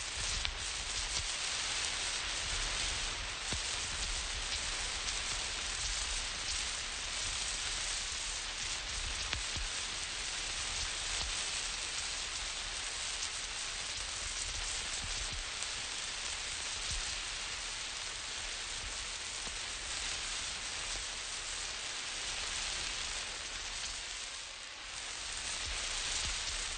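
Emergency road flare burning with a steady hiss, with a low rumble underneath. The hiss dips briefly near the end.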